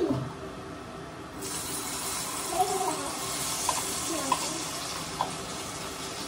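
Water running from a tap into a sink: it comes on suddenly about a second and a half in and then runs steadily.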